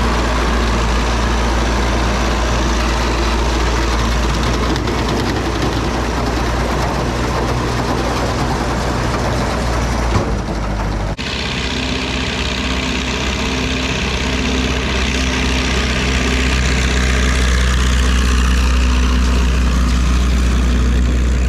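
Farm tractor engine running steadily with a heavy low rumble. About eleven seconds in it changes abruptly to another steady stretch of engine running.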